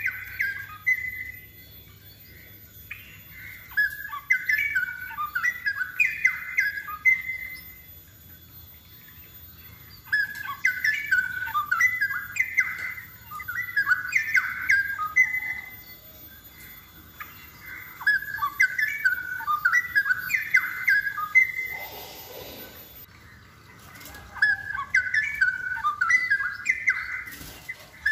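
Straw-headed bulbul singing loud warbled phrases a few seconds long, with short pauses between them. A brief rustling noise comes about three-quarters of the way through.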